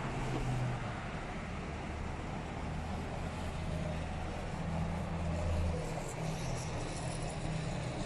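Steady road traffic noise with a low engine hum, and a few faint high sounds near the end.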